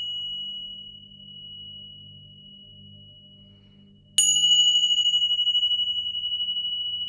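Tingsha cymbals ringing with one high, clear tone: the ring of an earlier strike fades away over the first four seconds, then the pair is struck together again about four seconds in and rings on with a fast pulsing wobble.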